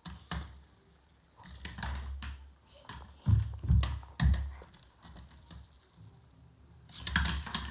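A series of irregular taps and clicks, with a few dull thumps a little past the middle and a quick cluster of clicks near the end.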